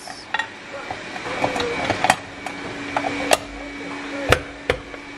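Non-stick waffle plates being clipped into a Russell Hobbs Fiesta 3-in-1 cake maker: about five sharp clicks and knocks, the loudest about four seconds in. A steady low hum sounds under them from about two seconds in.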